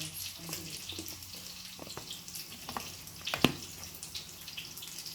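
Kitchen work sounds: a steady hiss with a few sharp knocks, the loudest about three and a half seconds in.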